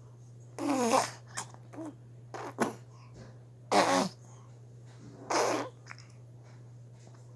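Four short non-speech vocal sounds, each with a bending pitch and separated by pauses, over a steady low hum.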